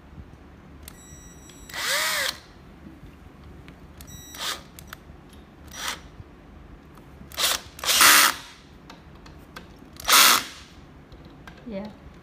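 Cordless drill driving screws into the aluminium end cap of an LED UV curing lamp, run in about six short bursts, the first with its pitch rising and falling as the motor spins up and down. The screws are being driven tight to seal the cap over the freshly glued waterproof joint.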